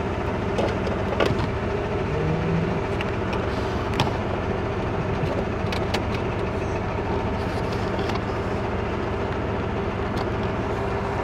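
Car engine idling steadily, heard from inside the cabin, with a few small clicks, the clearest about four seconds in.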